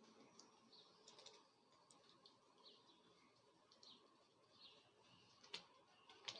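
Faint, scattered bird chirps, each short and falling in pitch, with two sharp clicks near the end.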